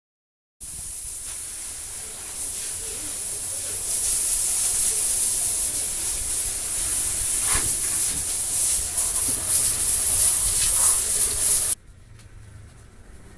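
Steady, loud hiss of a spray or compressed-air jet, starting suddenly just after the start and cutting off abruptly near the end.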